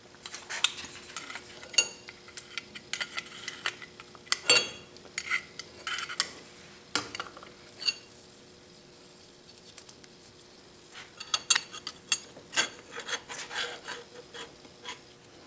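Steel gib strip being handled and slid into the dovetail ways of a Clausing horizontal milling machine's table: light metal-on-metal clinks, taps and short scrapes. They come in two busy spells with a quieter pause of a few seconds between, the loudest knock about four and a half seconds in.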